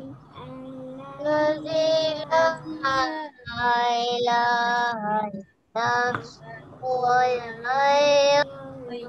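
Children and a woman singing together in drawn-out phrases, heard through video-call audio, with a short break a little past halfway.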